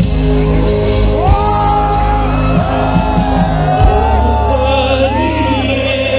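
Live rock band playing loudly through the stage sound system, with voices singing and shouting over sustained bass notes; the bass moves to a lower note about four seconds in.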